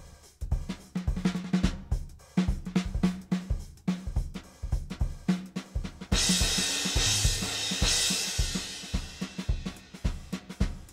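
Sampled vintage drum kit (the Ivory kit of Abbey Road Vintage Drummer) playing a built-in groove: kick, snare and hi-hat in a steady pattern. About six seconds in, a cymbal crash rings out over the drums and fades over the next few seconds.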